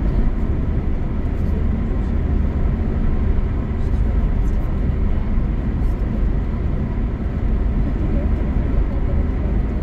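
Steady low rumble of tyres and engine heard from inside a car cruising on a highway.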